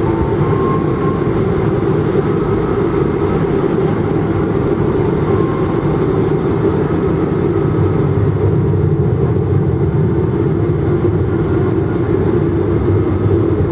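Steady, loud, deep noise of a Boeing 777-200's engines and airflow heard inside the passenger cabin during landing.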